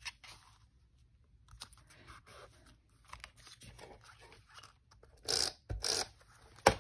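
Paper crafting handling sounds: cardstock circles and tape being handled and pressed onto a card, giving soft crinkles and taps, with a few louder sharp crackles near the end.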